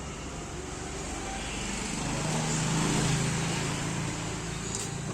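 A motor vehicle's engine, its low drone swelling to a peak about three seconds in and then fading.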